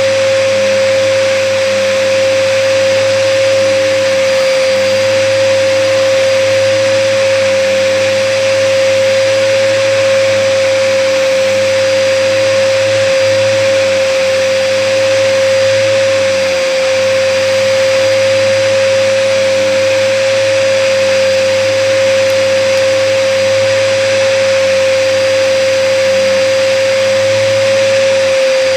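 Hoover brushroll vacuum cleaner running steadily, with a constant whine over its motor noise and no change in pitch or level. The owner says the vacuum was clogged and left uncleared.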